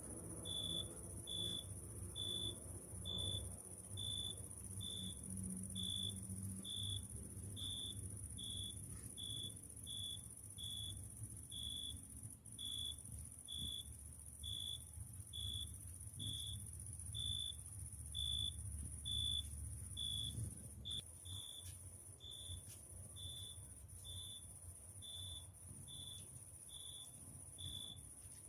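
A cricket chirping in an even rhythm, a little over once a second, against a steady, high, thin insect trill.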